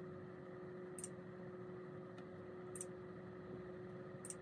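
Mouse-click sound effects of a subscribe-button animation: three short clicks, about a second in, near the middle and near the end, over a faint steady hum.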